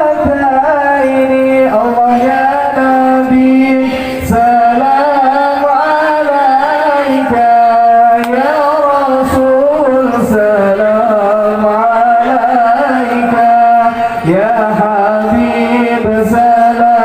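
A man singing sholawat (Islamic devotional praise of the Prophet) into a microphone, amplified: long, ornamented held notes that waver and glide between pitches in a chant-like melody.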